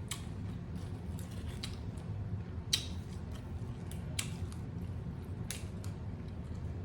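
Close-up crunching and chewing of Doritos tortilla chips loaded with dip, with sharp crisp crunches every second or so over a steady low hum.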